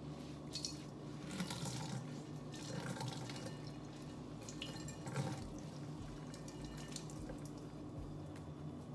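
Water dripping and spattering into a stainless steel sink as grated cauliflower is wrung out in a cloth dish rag, in uneven spurts with a few louder splashes.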